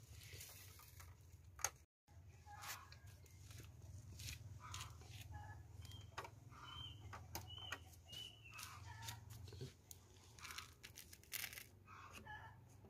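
Faint ambience: a low steady hum with short high bird chirps and light scattered clicks of handling, and one sharp click near the start.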